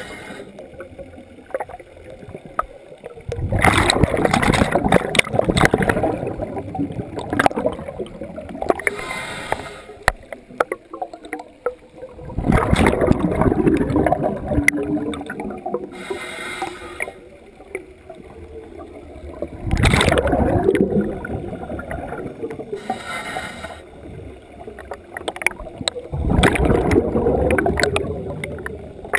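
Scuba diver breathing through a regulator: four loud bursts of exhaled bubbles gurgling, each two to three seconds long, about every seven seconds, with a brief hiss of inhalation between them.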